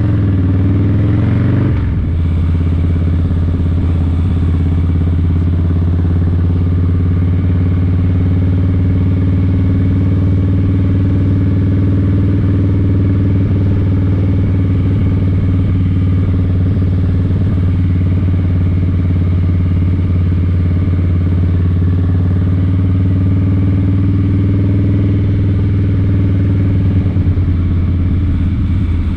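An engine running: its pitch rises briefly in the first two seconds, then it drops back and runs steadily at a low, even speed.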